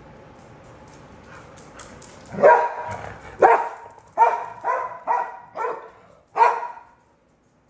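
A dog barking, seven barks over about four seconds, starting about two and a half seconds in.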